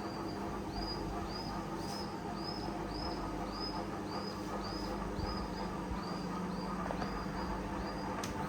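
Ceiling fan running with a steady electrical hum, and a short high squeak repeating about twice a second, in step with the fan's turning.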